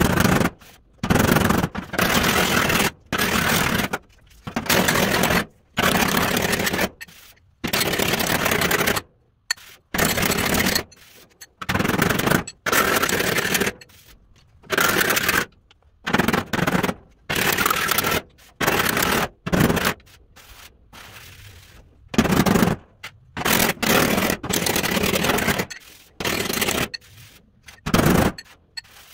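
Pneumatic air hammer chattering against the sheet-steel truck fender in repeated short bursts, most under a second, with brief pauses between them, as the welded, dented panel is worked smooth.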